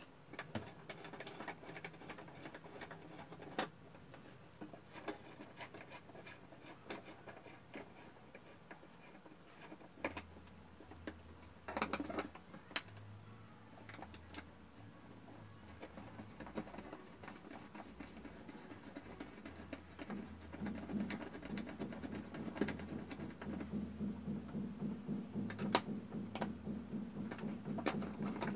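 Faint clicks, knocks and scraping of a plastic one-gang wall switch being handled and fitted onto a PVC utility box. From about twenty seconds in, a steady, fast rhythmic buzz starts and grows a little louder toward the end.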